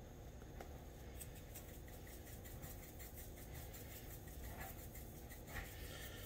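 Faint, irregular ticking and scratching from a newly opened seasoning container of Tony Chachere's Creole being handled, over a quiet room.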